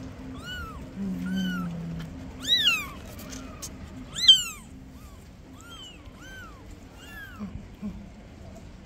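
Newborn kittens mewing as they are handled and one is lifted: a string of short, high-pitched mews about every half second. Two louder cries come about two and a half and four seconds in, and the second is the loudest.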